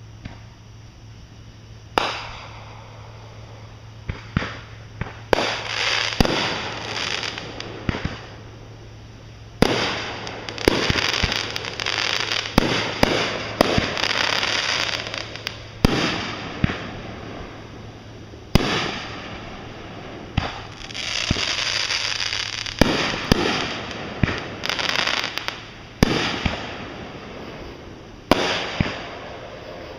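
Fireworks going off: irregular sharp bangs, the first about two seconds in, some coming in quick runs. Two long stretches of dense crackle follow the bangs.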